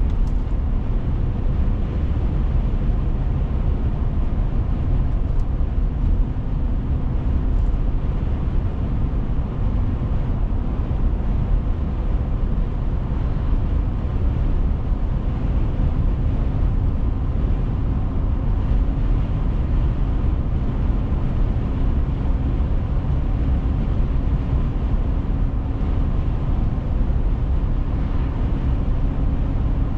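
Steady low road and engine rumble inside a moving car, with a faint steady hum over it.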